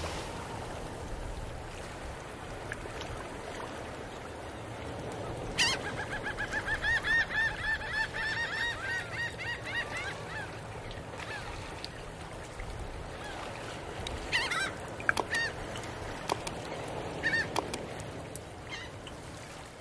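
Birds calling over steady outdoor background noise. About five seconds in, a fast run of repeated calls lasts about five seconds, then a few single calls come near the end.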